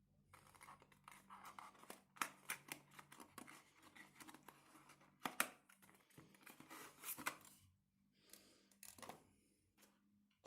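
Packaging being handled and torn open: irregular crinkles, scrapes and sharp clicks, with the loudest snap about five seconds in.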